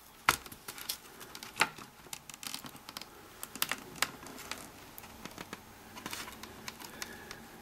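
Irregular light clicks and taps of hands handling the opened Norelco N2500 cassette deck as it is taken apart, with the sharpest clicks about a third of a second in, near a second and a half, and around three and a half to four seconds.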